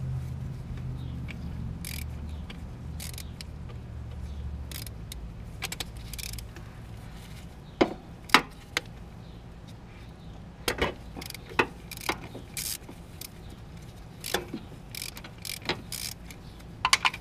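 Hand ratchet turning a swivel socket on a long extension against a starter mounting bolt: irregular sharp clicks and metal knocks, bunched in short runs. A low steady hum underneath stops about five seconds in.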